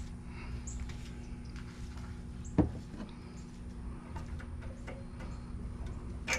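Light clicks and taps of small parts being handled during carburetor work, with one sharper knock about two and a half seconds in, over a steady low hum.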